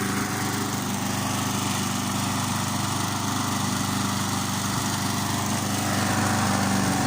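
Briggs & Stratton Sprint 3.75 hp single-cylinder lawn mower engine running steadily, fully warmed up after about ten minutes, with the dampness driven out so that it runs better.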